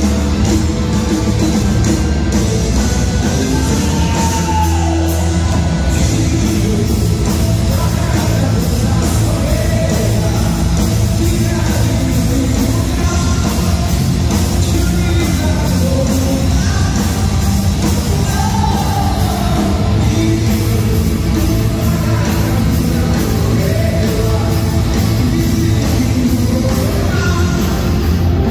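Live rock band playing with electric guitar, and a male singer belting a melody with long sliding notes.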